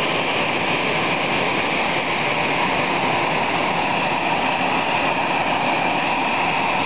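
Steady jet aircraft noise on an airport apron: a continuous rush with a high whine riding over it, unchanging throughout.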